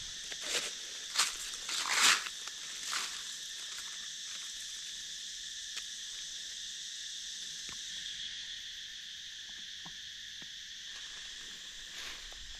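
Steady forest insect chorus, a continuous high buzzing in several pitches. In the first three seconds a few short rustles in dry leaf litter break through, the loudest about two seconds in.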